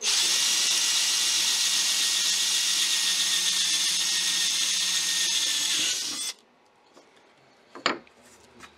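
Cordless drill running steadily as it bores a hole through aluminum angle, stopping after about six seconds. A short knock follows near the end.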